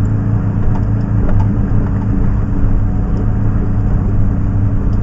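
Fire engine's motor running steadily while its bumper turret pumps water: an even low hum over a constant rush, with a few faint ticks.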